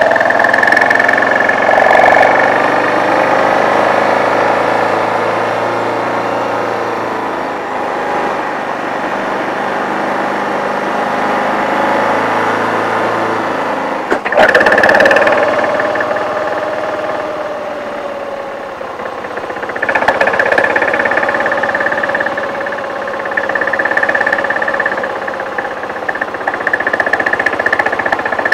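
BMW G650 GS single-cylinder motorcycle engine running under way, its pitch rising and falling as the bike speeds up and slows, with a sudden change about halfway through.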